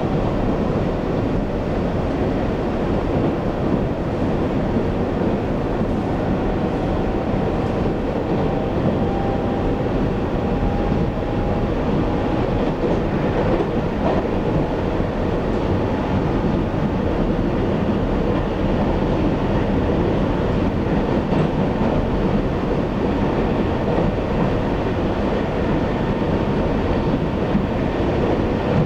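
Running noise of a Taiwan Railway EMU800 electric multiple unit heard from inside the passenger car at speed: a steady rumble of wheels on rail. A faint whine rises slowly in pitch about a quarter of the way in.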